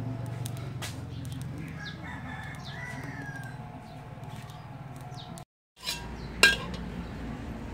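Twigs crackling and popping as they burn in a clay wood stove, with a rooster crowing about two seconds in. Near the end, one sharp metallic clink of a metal spatula striking an aluminium wok, the loudest sound.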